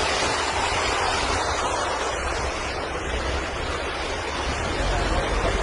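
Rushing floodwater: a steady, even rush of noise, with wind rumbling on the microphone.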